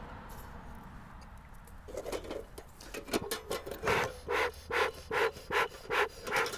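Beekeeping smoker's bellows pumped in a steady run of short puffs, about two or three a second, starting about three seconds in, after some rustling as tinder is pushed into the can. Each puff blows air through the firebox to get freshly lit tinder smouldering.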